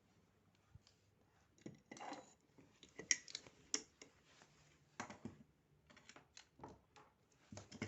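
Irregular small clicks and brief rustles from hands handling fiber-optic cable tools and parts.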